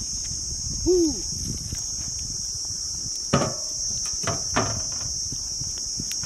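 Steady high-pitched chirring of insects, crickets by their sound. About a second in there is a short rising-then-falling call, and later a few knocks with a brief ring as a stone is set down on the pot's metal lid.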